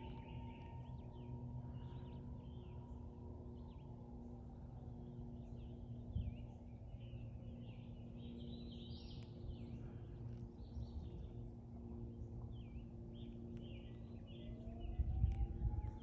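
Small birds chirping in scattered short calls, with a distant siren wailing slowly down in pitch and rising again near the end, over a low steady rumble.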